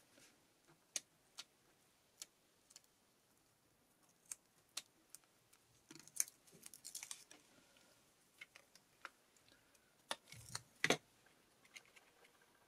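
Quiet paper-crafting handling: scattered small clicks and light rustles as a pointed craft tool picks up and presses small foam adhesive spacers onto die-cut cardstock pieces. A soft thump and a sharp tap come about eleven seconds in, the loudest sounds.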